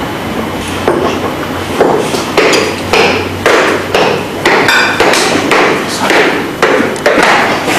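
Repeated sharp knocks, about two a second, starting about two seconds in, each ringing briefly; one near the middle has a metallic ring.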